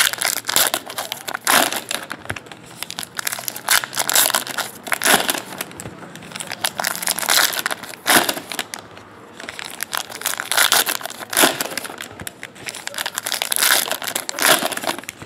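Trading card pack wrappers crinkling and tearing open as packs are ripped and handled, in repeated irregular bursts.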